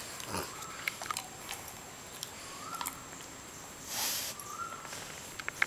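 Rottweiler lazily mouthing and licking a stick-shaped chew snack: scattered small wet clicks and lip smacks, with a short breathy hiss about four seconds in.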